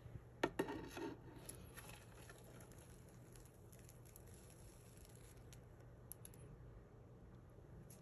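Faint crackling and rustling as a small plant is pulled up out of soil matted with tarantula webbing. A short burst of crackles comes about half a second in, followed by a few scattered ticks.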